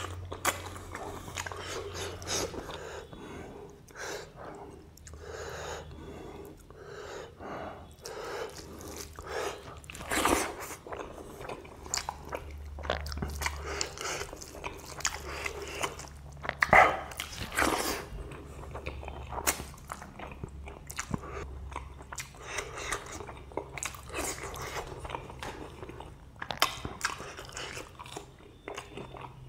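Close-miked chewing and lip-smacking as a person eats rice and pork belly by hand: many irregular short wet clicks and smacks, with a few louder ones, over a faint steady low hum.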